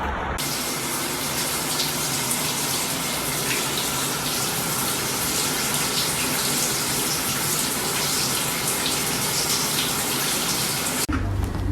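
Steady rush of running water, like a tap or shower pouring into a tub. It starts abruptly about half a second in and cuts off suddenly near the end.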